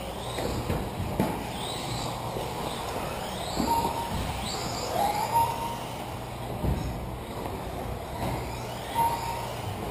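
Radio-controlled 2WD off-road buggies racing, their electric motors whining up and down in pitch as they accelerate and brake, with occasional knocks from the cars. Short steady beeps sound three times.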